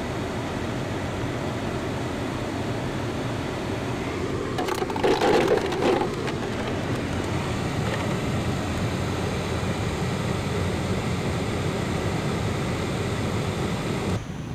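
Steady low rumble of a car's cabin with the vehicle running, and a short louder clatter about five seconds in.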